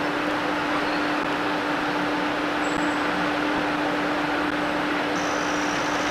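Alco RS-3 diesel locomotive running steadily as it approaches hauling a passenger train: an even engine drone with a constant hum.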